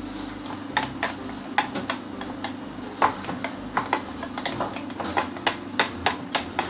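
Hand blender running steadily, blending old ginger and water into a paste, with irregular sharp clicks and knocks, several a second, over the motor's hum.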